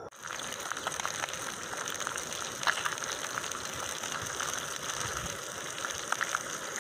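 Meat frying in a pan over a gas camping stove: a steady sizzle with many small crackles and spits, a few louder pops scattered through it.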